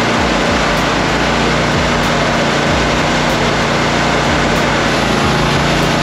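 Toro Multi Force tool carrier's engine running steadily while its power broom attachment spins, sweeping compacted icy snow off concrete; a loud, even hiss from the broom sits over the engine's low hum.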